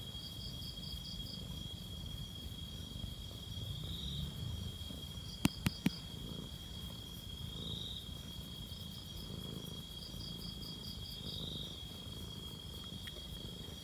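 Crickets trilling steadily, with a low, rumbling purr underneath from a domestic cat being stroked. Three sharp clicks sound about five and a half seconds in.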